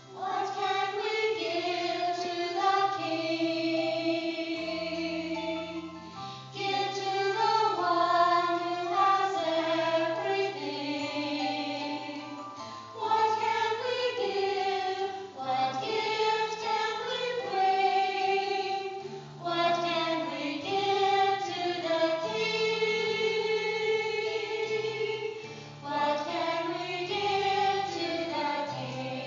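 Women's vocal ensemble singing in parts, with held low accompanying notes underneath. The voices enter right at the start and break briefly between phrases several times.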